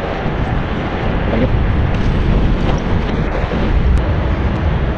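Wind buffeting the camera's microphone: a loud, steady, low rumble.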